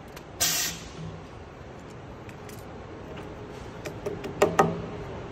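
A short burst of air hiss about half a second in, from the door-lock mortising machine's pneumatic clamps letting go of the workpiece. Near the end come a few sharp wooden knocks as the machined wooden door stile is handled on the machine table.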